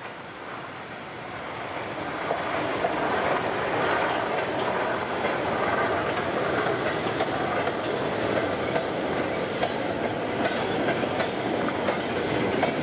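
Four-wheeled coal hopper wagons and a brake van rolling past, their wheels clicking over rail joints. The sound grows louder over the first couple of seconds, then holds steady.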